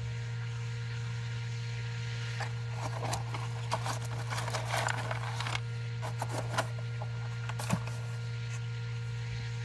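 Faint rustling and small clicks of curtain-track parts being handled and pressed into place, over a steady low hum. One sharper click comes near the end.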